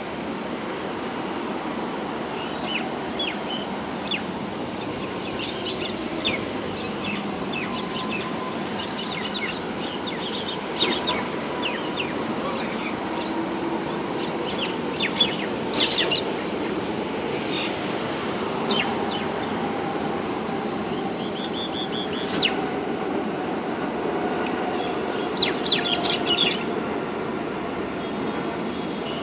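Birds giving short, sharp chirps and calls in scattered clusters over a steady low rumble, with the loudest calls about halfway through and again near the end.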